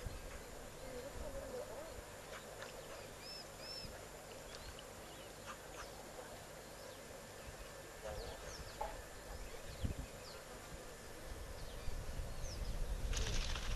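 Outdoor waterhole ambience: scattered short bird chirps over a faint steady background hiss. A louder rush of noise comes in near the end.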